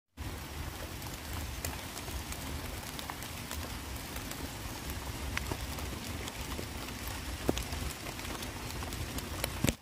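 Steady outdoor background noise with a low rumble and scattered faint ticks, cut off abruptly at the end.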